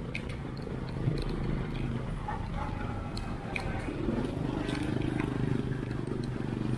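Street traffic noise from motorbikes and a bus: a steady low engine rumble with a few light clicks, and an engine note that rises and falls about four seconds in.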